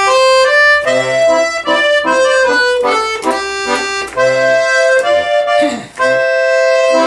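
Button accordion playing the instrumental introduction to a carol: a tune in held notes over chords, with a brief break near the end.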